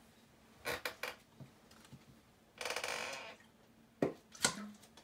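Someone handling and drinking from a soda: a few light clicks, a short grating noise of under a second, then two sharp knocks about half a second apart.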